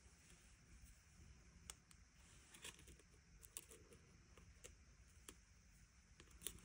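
Near silence with a few faint, scattered clicks and taps of fingers and fingernails handling and pressing die-cut card stock.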